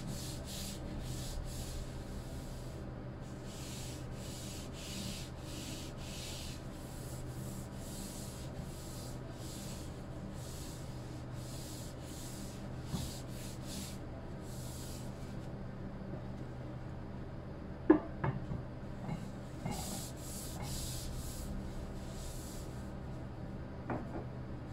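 Paper towel rubbed back and forth over a wooden cutting board, a hissing swish with each stroke at about two strokes a second, with a pause of a few seconds after the middle. A sharp knock a little past the middle, the loudest moment, and a smaller one near the end.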